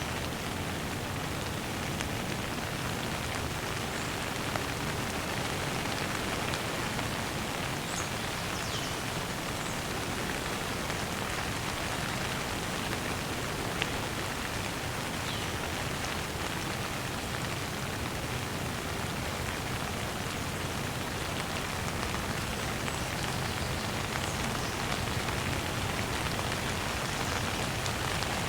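Light rain falling steadily, an even hiss of drops on a surface, with a couple of sharper drop ticks.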